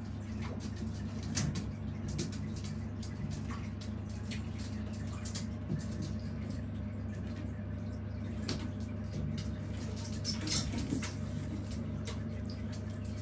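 A steady low mechanical hum with scattered small clicks and taps over it.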